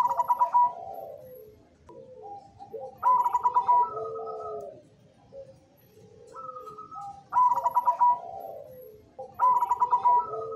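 Caged zebra dove (perkutut) singing its cooing song in four phrases, two to four seconds apart. Each phrase is a quick run of clipped notes that drops into lower, drawn-out coos.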